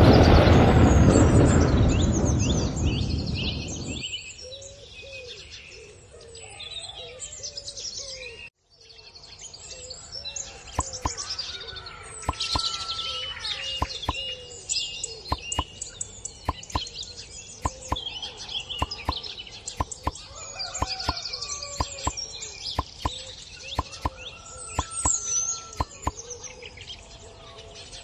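A loud rumble like thunder with rain fades out over the first four seconds, then birds chirp and whistle, with scattered sharp clicks among the calls.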